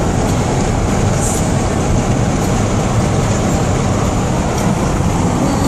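Steady road and wind noise inside a car's cabin at highway speed.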